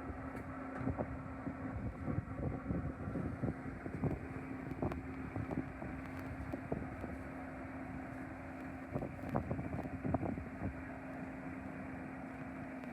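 Wind buffeting the microphone in irregular gusts over a steady low hum.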